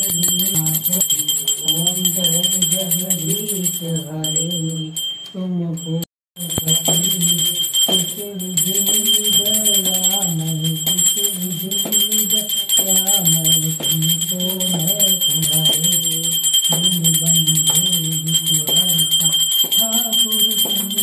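A puja hand bell rung rapidly and without pause, its high ring held steady, over a devotional aarti being sung. Both drop out for a moment about six seconds in.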